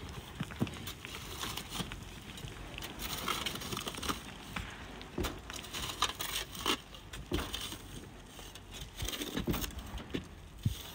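Irregular scraping and short knocks of hand tools digging into sand and gravel.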